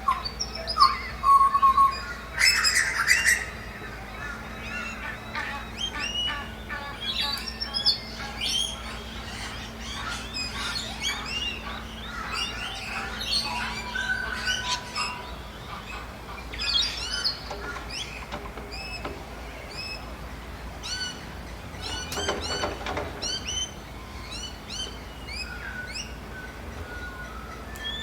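Dawn chorus of many birds calling at once: overlapping chirps, whistles and squawks, with a loud harsh call about three seconds in and another near the end. A faint steady low hum runs underneath.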